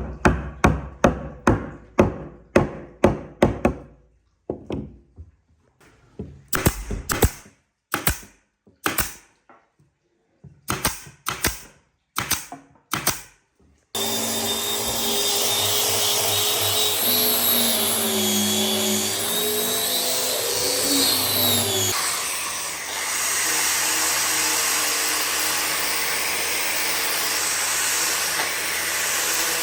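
Hammering on wood in quick runs of sharp knocks, first about three a second and then in short bursts with pauses. About halfway through it changes abruptly to a power tool running steadily with a wavering pitch.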